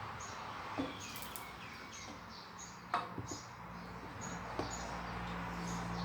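A small bird chirping in short high notes, about two a second, with a few sharp clicks. A low hum comes in about halfway through.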